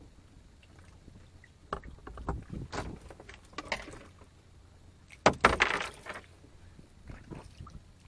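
Irregular knocks and clatter aboard a small fishing boat, with a louder, longer scraping burst about five seconds in, over a faint low hum.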